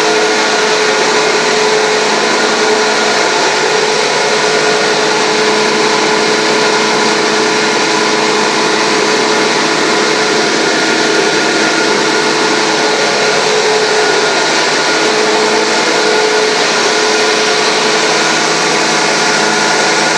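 Sawdust fine grinder machine running at steady speed: a loud, even whir with a constant hum that does not change.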